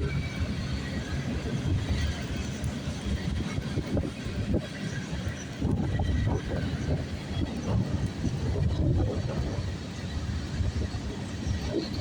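Norfolk Southern freight train rolling past, with a steady low rumble and irregular knocks and clatter from its wheels on the rails.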